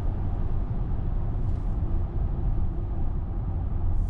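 Steady road and tyre noise inside the cabin of a VW ID.4 electric car on snow tyres, coasting at about 100 km/h with the motor unloaded: an even low rumble with a faint hiss above it.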